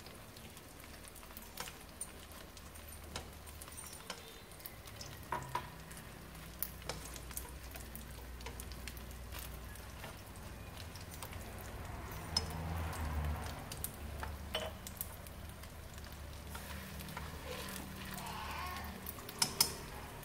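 Vegetarian spring rolls sizzling as they shallow-fry in oil in a frying pan. Scattered light clicks and taps come as chopsticks turn the rolls in the pan.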